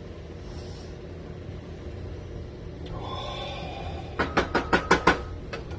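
A quick run of about six sharp knocks, a little over a second long, over a low steady hum.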